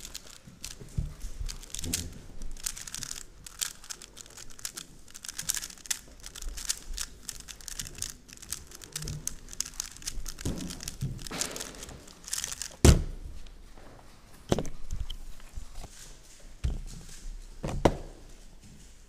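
3x3 speed cube being turned fast: a long run of quick plastic clicks and rattles that thins out about two-thirds through. A few sharp thuds follow, the loudest just after the clicking stops, the last near the end as the cube is set down on the timer mat.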